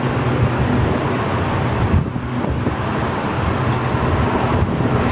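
Jet engines of an Airbus A321-200 running with a steady low rumble as the airliner moves onto the runway for takeoff, with wind buffeting the microphone.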